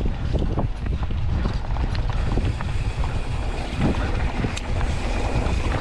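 Wind buffeting the action camera's microphone as a Polygon Siskiu T8 mountain bike rolls down a dirt trail at speed, with the bike's rattles and knocks over bumps scattered through it.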